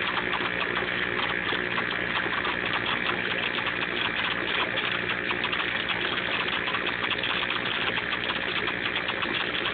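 Aquarium filter pump running steadily: a constant motor hum under the rush of circulating water.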